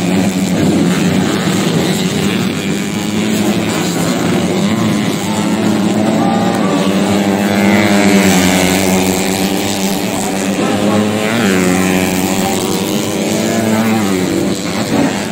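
Racing motorcycle engines on a dirt track, revving hard, their pitch rising and falling several times as riders accelerate and shift, over a steady engine drone.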